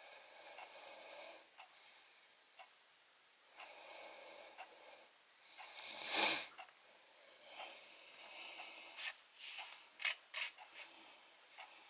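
Quiet close-miked sounds of beard hairs being plucked with steel tweezers: small sharp ticks and clicks from the tweezer tips, with soft breathing noises. A louder breathy rush comes about six seconds in.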